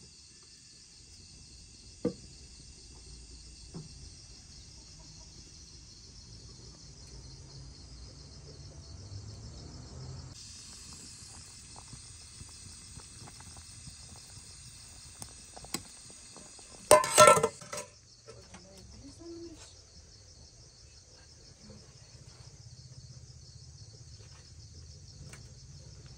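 Crickets chirping in a steady high trill over a low rumble. A sharp tick comes about two seconds in, and a short loud burst of knocks comes about seventeen seconds in.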